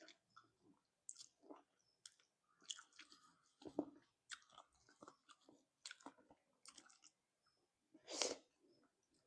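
Close-miked chewing of spicy braised chicken feet: irregular short wet mouth sounds, with two louder ones about four and eight seconds in.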